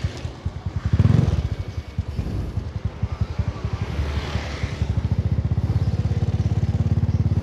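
Motorcycle engine running as the bike moves off and rides along, a fast even beat of exhaust pulses that quickens and steadies about four seconds in.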